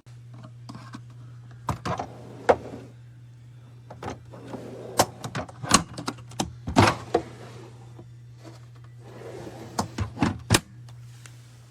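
DEWALT ToughSystem 2.0 plastic tool box being handled, giving sharp plastic clicks and knocks in three bursts, at about 2, 5 to 7 and 10 seconds in, over a steady low hum.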